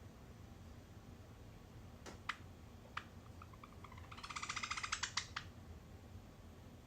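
Java sparrow making sharp clicking sounds: a couple of separate clicks, then a quickening run of rapid clicks that stops after about two seconds.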